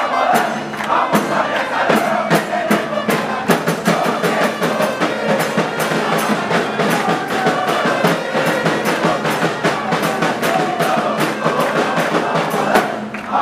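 Football supporters' crowd chanting together to a steady beat of drums.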